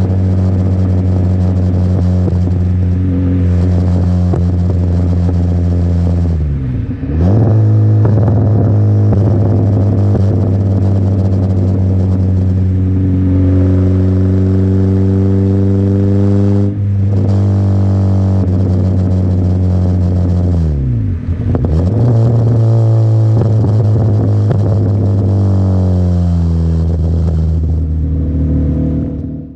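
Peugeot 106 XR's 1.1-litre four-cylinder petrol engine running through a custom exhaust under way: a steady drone whose revs dip sharply and pick back up twice, as at gear changes, climb for a few seconds in the middle, and ease off near the end.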